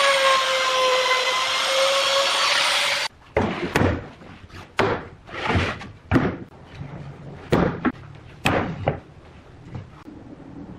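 An electric power tool runs with a steady whine that sags slightly in pitch, then stops about three seconds in. A series of about seven short knocks and rubs of wood follows, a few of them drawn out over half a second.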